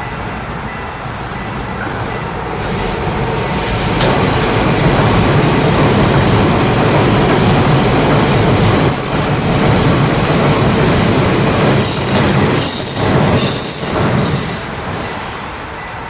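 Train passing: its rumble builds over the first few seconds, runs loud for about ten seconds with high wheel squeal in the last few seconds, then falls away suddenly.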